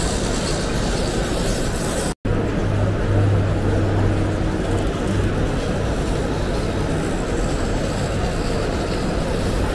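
Steady background noise of a busy exhibition hall. It cuts out completely for an instant about two seconds in, where two clips are joined. A low steady hum comes in after the cut.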